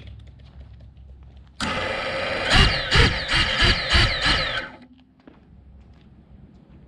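Brushless motors of a 6S FPV quad spinning at idle close to the camera: a dense whirring whine that starts abruptly about a second and a half in, wavers slightly in pitch, and cuts off about three seconds later.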